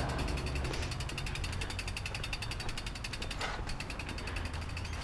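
Mountain bike rear freehub clicking as the bike coasts: a rapid, even ticking of the ratchet pawls, with a low rumble underneath.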